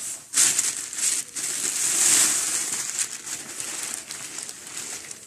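Crinkling and rustling of something being handled, with a sudden start just under half a second in and the loudest stretch about two seconds in.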